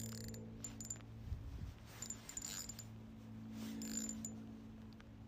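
Faint scattered clicks and ticks from a fishing reel while a large perch is being played on the line, over a faint steady hum.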